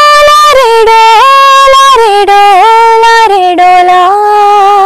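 A woman singing alone, with no accompaniment, holding long notes that step up and down in pitch with small bends between them.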